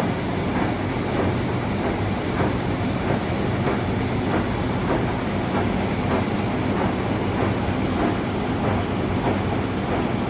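Warner & Swasey 3-A universal saddle turret lathe running under power: a steady mechanical running noise from the spindle and gearing, with faint repeated clicks.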